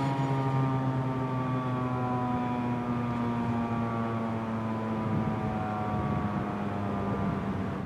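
Federal Signal 2001-SRN rotating tornado siren winding down at the end of its test sounding, its single tone sliding slowly lower in pitch as the rotor coasts.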